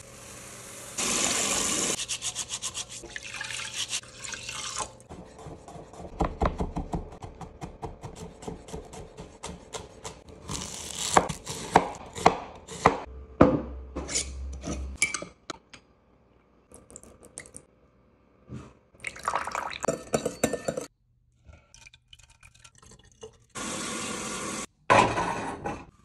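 A string of kitchen preparation sounds: dry rice grains pouring into a glazed clay pot, running water and splashing, and a run of clicks and taps as a glass jar is handled and its metal lid twisted open.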